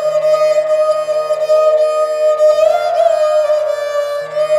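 Instrumental background music: a sustained melody that glides in pitch over a steady drone, in an Indian classical style.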